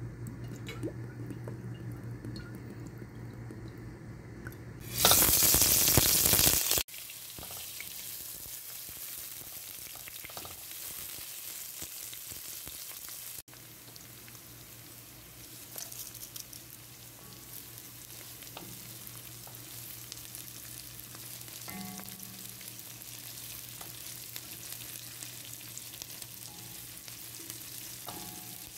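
Sliced red onions and whole spices frying in hot oil in a wok, with a steady sizzle and occasional clicks of stirring. About five seconds in there is a loud hiss lasting under two seconds, before the sizzle settles.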